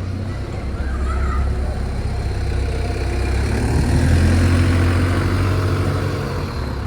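Bus engine running, growing louder to a peak about four seconds in, then easing off.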